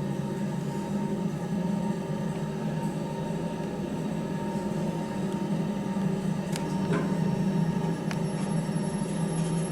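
Lift car travelling in the shaft: a steady low hum of the ride, with a couple of faint clicks near the end.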